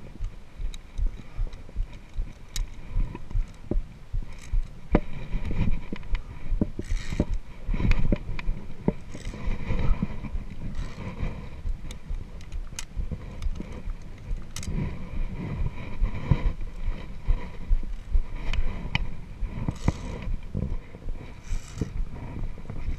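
Via ferrata climbing gear in use: carabiners clicking and scraping along the steel safety cable, with irregular sharp clicks and knocks and a few short rasping scrapes over a constant low rumble of handling noise on a body-worn camera.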